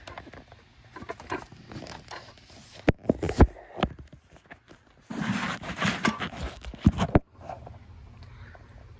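Handling noise from a camera phone and a toy train car being moved about and set down: scattered knocks and clicks, two loud ones around three seconds in. About five seconds in comes a dense rustle that cuts off suddenly after roughly two seconds.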